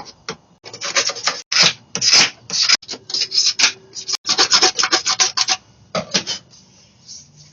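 Hand sanding: quick back-and-forth abrasive strokes in runs with short pauses, trailing off near the end, taking a part down to make it fit.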